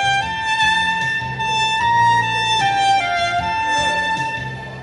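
A slow melody played on a solo instrument over a low backing accompaniment, in held notes that step up and down. The sound dips briefly near the end.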